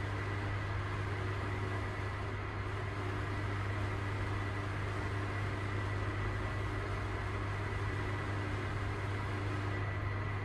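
A 1995 GoldStar passenger lift travelling down between floors, heard from inside the car: a steady low hum with a thin high whine over an even hiss.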